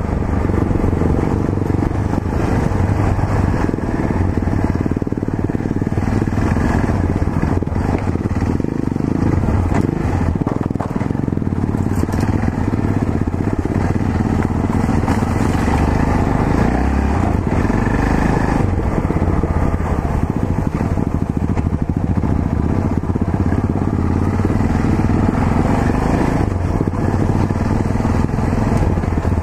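Yamaha XT 660Z Ténéré's single-cylinder engine running while riding, a steady note whose pitch shifts a few times.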